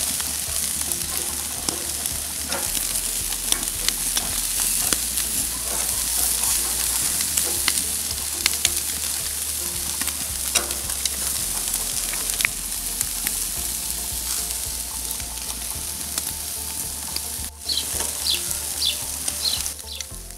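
Lamb chops sizzling on a grill grate over charcoal, a steady hiss with many small crackles.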